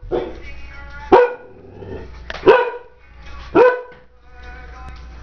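A young Bullador (bulldog–Labrador mix) barking four times, about once a second, the first bark softer than the rest.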